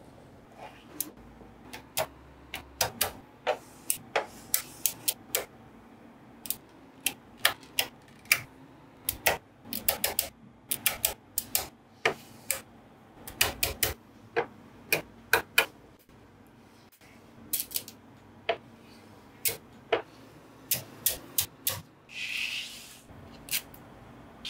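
Small magnetic balls clicking sharply as they snap onto one another, one at a time, in irregular runs of two or three clicks a second. There is a short pause partway through and a brief rustle near the end.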